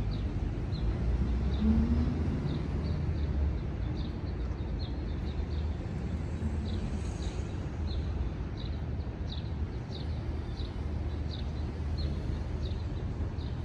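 A small bird chirping over and over in short notes, about two a second, over a low steady rumble.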